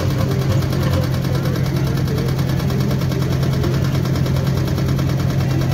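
Diesel engine of a JCB 3DX backhoe loader running steadily while the backhoe digs, a constant low engine hum with no let-up.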